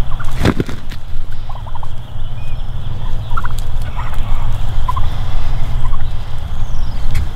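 Wild turkey toms calling close by: one loud gobble just under a second in, then a few short, fainter calls, over a steady low rumble.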